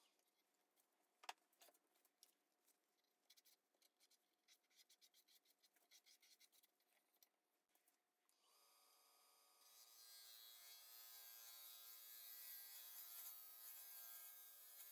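Very faint wood lathe turning a cherry burl blank with a turning tool on it: scattered light clicks at first, then from about eight seconds in a steady hiss with a faint hum.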